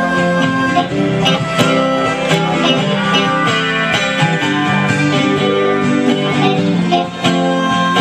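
Live acoustic guitar strumming under an amplified harmonica played through a cupped hand-held microphone, with long held reedy notes over the chords.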